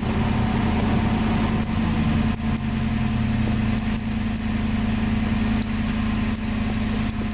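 Ford plow truck's engine running steadily with a constant low hum.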